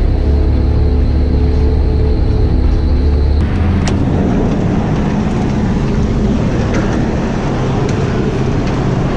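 Farm machine engine running steadily. About three and a half seconds in, the sound changes abruptly to a rougher, noisier running.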